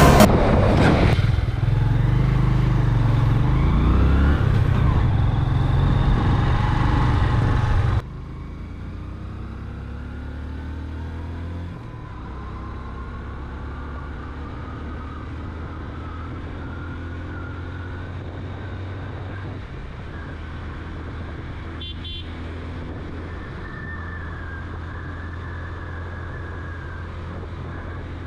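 Motorcycle engine running on the road, its pitch rising and falling as it revs and shifts. A louder stretch cuts off abruptly about eight seconds in, followed by quieter running with a slowly rising pitch as it gathers speed. There is a short horn toot about three-quarters of the way through.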